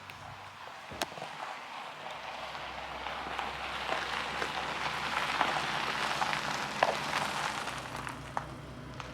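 Steady hiss of falling water, growing slightly louder, with scattered sharp drip-like ticks.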